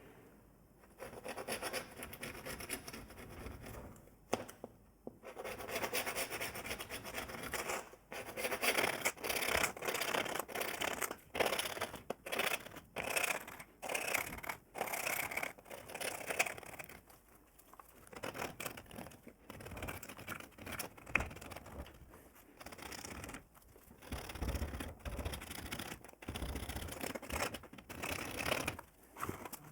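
Repeated scraping strokes by hand, each lasting about half a second to a second, with short pauses between them.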